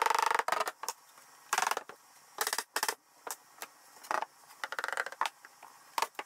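Plywood panels scraping and chattering as they are pushed into dado grooves, in several short bursts, with a few single sharp knocks of a mallet tapping them into place.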